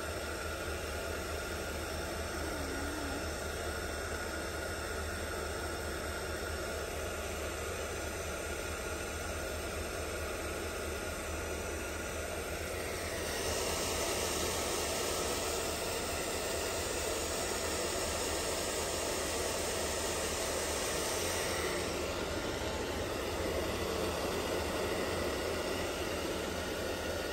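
Handheld hair dryer running with a steady hum and airflow hiss. The hiss grows brighter and a little louder from about halfway through, for several seconds.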